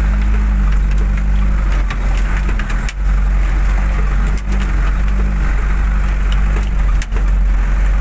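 Steady engine drone of a vehicle driving along a rough dirt road, with irregular knocks and rattles from the bumps.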